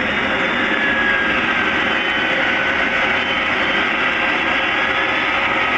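Jet aircraft engines running steadily, a loud even rushing noise with a faint high whine.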